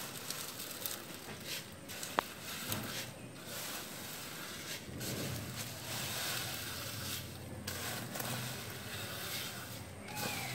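Dry vermicelli being swept by hand off a steel tray into a pot of boiling water: rustling and scraping of the dry strands against the metal, over a steady hiss. One sharp click about two seconds in.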